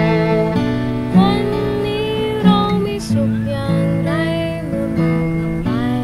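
A Thai acoustic ballad: a woman sings over a strummed acoustic guitar, with a violin playing a melody alongside.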